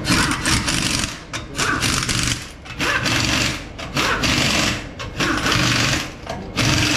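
Pneumatic impact wrench running in repeated short rattling bursts, about one a second.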